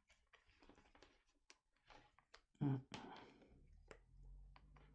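Small irregular plastic clicks and creaks as the triangular key on the back of the charger plug is turned in the base of an Oral-B 3738 electric toothbrush to unscrew it. A short voiced sound comes about two and a half seconds in.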